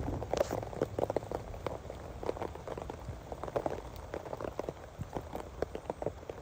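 Rain falling, with many separate drops tapping irregularly over a steady patter.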